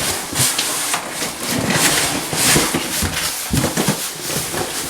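Rustling and clatter as dryer repair-kit parts and their packaging are handled, with crackly noise and scattered knocks.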